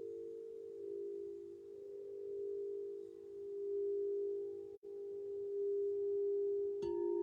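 Crystal singing bowl ringing with a steady, pure tone that slowly swells and fades. Near the end there is a light knock, and a second, lower note joins in.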